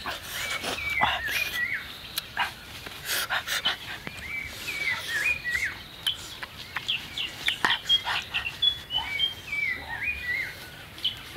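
Birds chirping in quick runs of short whistled notes that dip and rise in pitch, with sharp smacking clicks of people chewing food up close.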